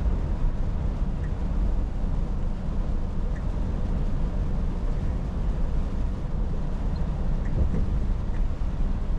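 Scania S450 truck heard from inside the cab while driving along at a steady speed: a low, even diesel engine rumble with tyre and road noise over it.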